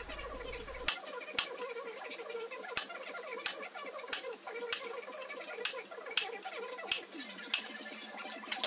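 Hand hammer striking a small chisel to cut marking lines into steel clamped in a vise: about a dozen sharp metallic taps, roughly one every half second to a second.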